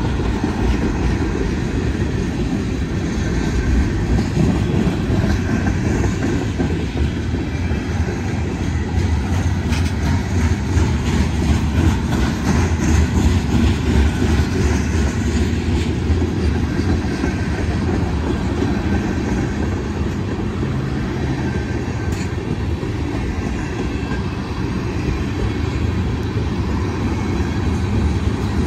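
Freight train's tank cars and covered hoppers rolling past close by: a steady, even rumble of steel wheels on the rails.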